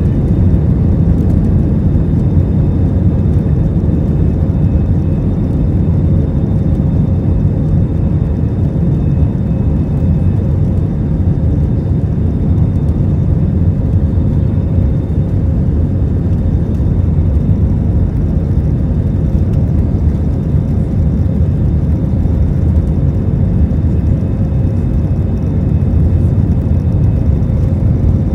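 Airbus A320 jet engines at high thrust during takeoff, heard as a steady, even low rumble with a faint steady hum above it.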